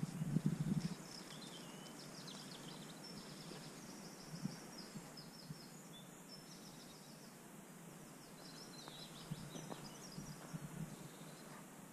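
Small birds singing and chirping in the background over faint outdoor noise. A soft low rustle, the loudest thing, comes in the first second, with a few more near the end.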